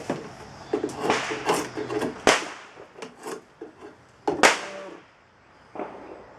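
Drawknife shaving green black locust on a hatchet handle blank: a run of irregular rasping cutting strokes, two of them ending in sharp loud cracks about two and four and a half seconds in.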